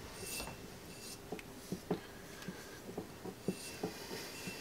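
Fingers rubbing grease around the Celestron C11's inner baffle tube: faint, irregular rubbing with small clicks.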